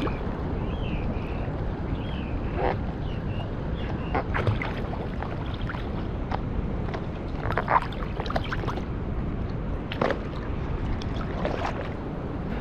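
Water splashing and sloshing now and then, over a steady rumble of wind on the microphone.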